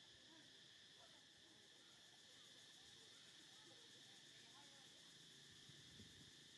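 Near silence: a faint, steady, high-pitched insect drone in the background.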